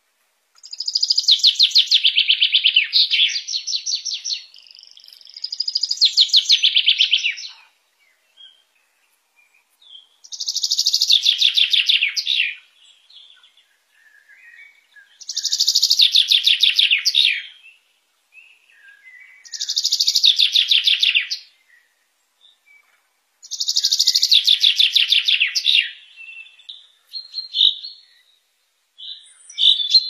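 Male common chaffinch singing: about six song phrases, each a fast trill of notes that falls in pitch and ends in a short flourish, repeated every four to five seconds. Short chirps fall between the phrases, and the phrases give way to shorter notes near the end.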